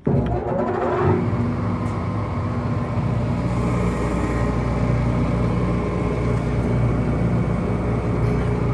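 A 45-station 328-1 rotary tablet press's drive motor starting at the push of its start button. It spins up with a rising whine over the first second, then runs with a steady mechanical hum.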